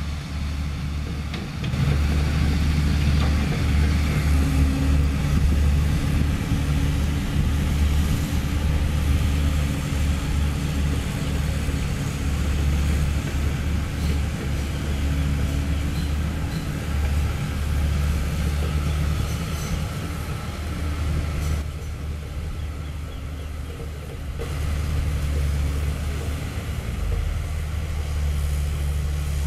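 Diesel engines of Komatsu PC130F-7 hydraulic excavators running steadily while digging in wet mud, easing off briefly about two-thirds of the way through.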